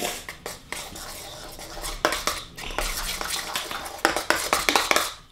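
A spoon stirring homemade slime (glue mixed with glitter and beads) in a bowl. It clinks and scrapes against the bowl in quick repeated strokes, busiest near the end.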